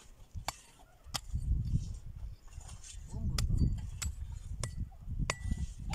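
Hand tools working dry, stony soil: sharp knocks at irregular intervals, over wind rumbling on the microphone, with faint distant voices.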